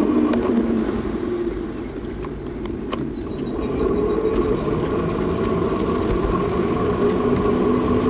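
A vehicle's motor running steadily while on the move, a hum with road and wind noise, dipping briefly about two seconds in.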